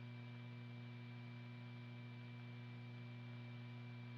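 Faint steady mains hum with a light hiss, the background noise of an old film soundtrack; no other sound.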